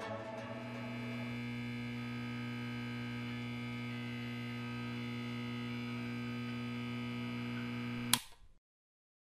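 A steady low electronic hum with a stack of even overtones, cut off by a click about eight seconds in.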